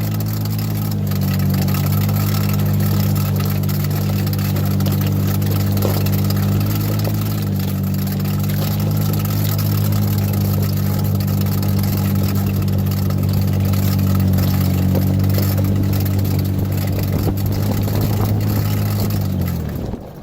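Jeep engine running steadily as it drives slowly up a dirt trail in four-wheel drive, its pitch shifting slightly a couple of times, then falling away and stopping near the end.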